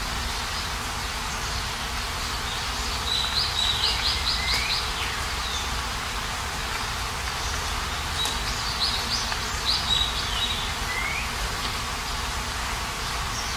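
Steady rain hiss. A small bird sings two short phrases of quick high chirps, each ending in a falling note, about three seconds in and again about eight and a half seconds in.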